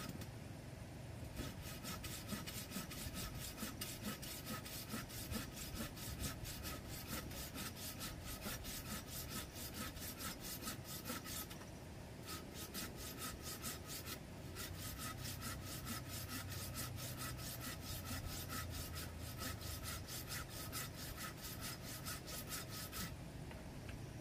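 Hand saw cutting through a wooden branch in quick, even strokes, about five a second, stopping for a couple of seconds midway and then carrying on.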